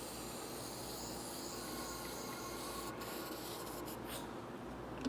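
Aerosol can of battery terminal protector spraying onto the battery posts: a faint hiss in two bursts, a longer one of about three seconds and then a shorter one of about a second.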